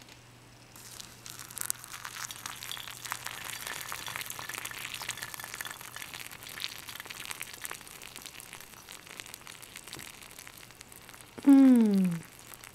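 Hot water poured in a thin stream from a spout into a glass teapot over dried rose buds, a steady splashing, crackling pour that starts about a second in and thins toward the end. Near the end a person gives a short, loud, falling hum.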